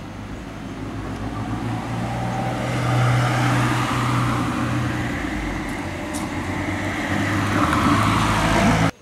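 A car running past on the street, its engine hum and road noise swelling to a peak about three seconds in and then holding a little lower; the sound cuts off suddenly near the end.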